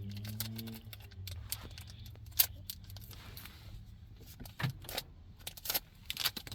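Pokémon trading cards and their foil pack wrapper being handled and slid past one another: scattered small clicks and rustles, one sharper snap about two and a half seconds in, over a low hum that fades out about a second in.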